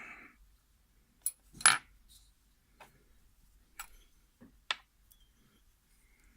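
Sharp metallic clicks and clinks of small metal parts and tools being handled while a picked lock is taken apart, about five separate strikes, the loudest a little under two seconds in.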